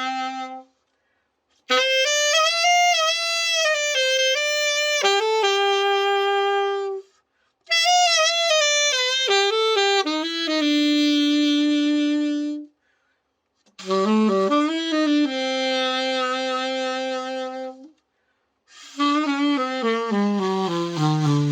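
Nova Sax AX-502S silver alto saxophone played solo as a play-test after a full overhaul. It plays short melodic phrases with vibrato on the held notes, broken by brief dead-silent gaps. Near the end a run steps down into the low register.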